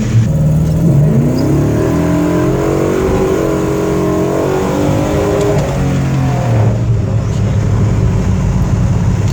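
1969 Dodge Charger's engine under hard acceleration: the pitch climbs about a second in, holds high, then falls back about six seconds in and settles to a lower, steady running note.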